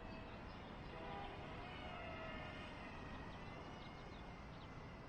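Faint, distant whine of a small electric-motor RC pusher plane in flight, its pitch wavering and gliding as the throttle changes, over a steady wind-like hiss, with a few short high chirps.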